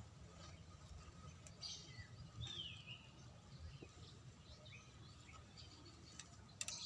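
Faint outdoor ambience with scattered bird chirps, including one clear downward-sliding call about two and a half seconds in, over a low steady rumble. A short sharp click near the end.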